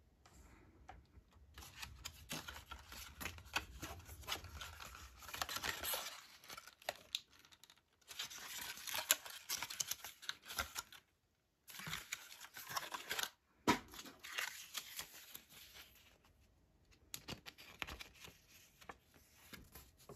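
Cardboard packaging and a folded paper leaflet being handled: rustling, scraping and small taps as the box's inner tray is pulled apart and the leaflet unfolded, in several stretches with short breaks.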